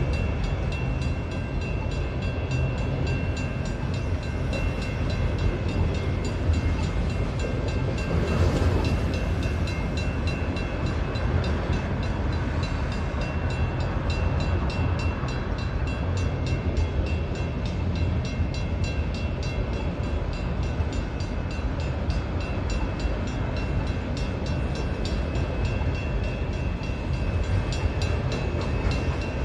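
Freight cars of a long Union Pacific train rolling through a level crossing: a steady, loud rumble and rattle of wheels on rail, with a thin steady high ringing tone over it and a brief louder swell about eight seconds in.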